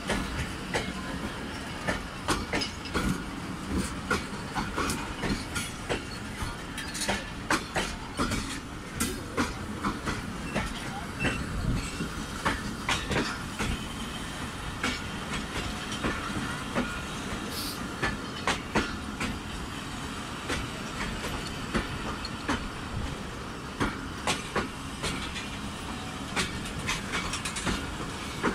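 Pakistan Railways passenger coaches rolling past as the train pulls into the station, a steady rumble with the wheels clacking irregularly over the rail joints.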